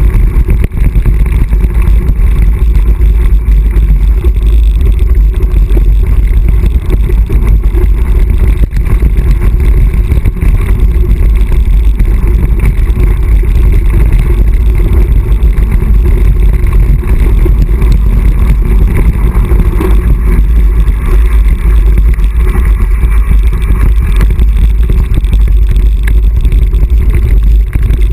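Mountain bike descending fast over a dirt and gravel trail, heard from a bike- or helmet-mounted camera: wind buffeting the microphone makes a loud, steady rumble, with constant rattle and clatter of the bike over stones and ruts.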